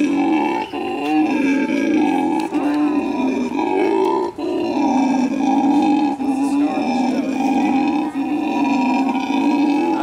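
A monkey calling loudly and almost without pause, in a long, steady, grunting roar that breaks only briefly a few times.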